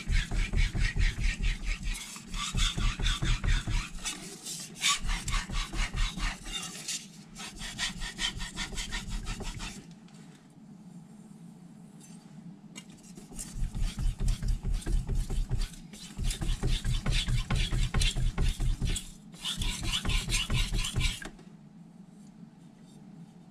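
Carbon-steel kitchen knife blade being stroked back and forth on a Naniwa Aotoshi 2000-grit whetstone: a rapid, rhythmic grinding scrape in several runs with short pauses between, stopping about three quarters of the way through.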